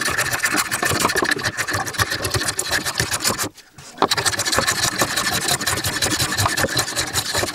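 Handheld electric power tool running on wood, with a steady whine; it stops briefly about three and a half seconds in and starts again.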